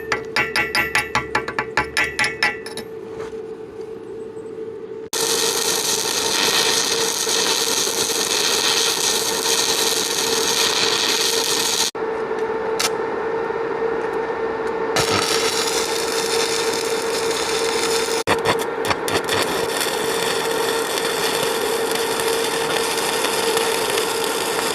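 Metalworking tool noise in several short takes: a rapid even ticking at first, then a steady hiss that stops and starts abruptly a few times, over a steady hum.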